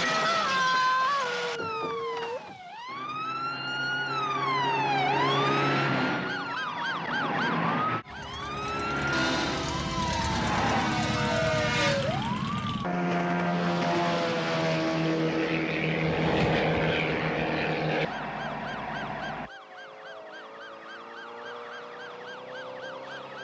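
Police car siren wailing, rising and falling over and over for about ten seconds, over an orchestral film score. It begins after a couple of seconds of loud noise and stops about halfway through; the music carries on, quieter near the end.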